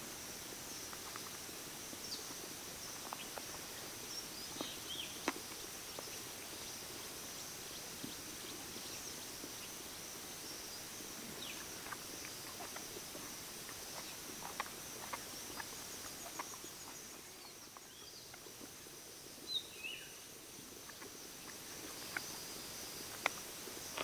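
Outdoor nature ambience: a steady high-pitched insect drone, with a few short bird chirps and scattered small clicks.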